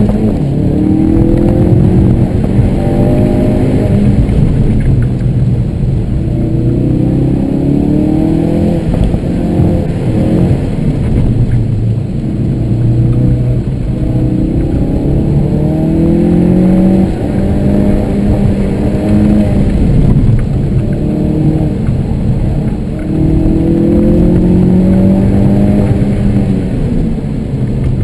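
Ford Focus RS's turbocharged 2.3-litre four-cylinder engine pulling hard and backing off again and again through an autocross cone course, its pitch rising under acceleration and dropping back several times, heard from inside the cabin.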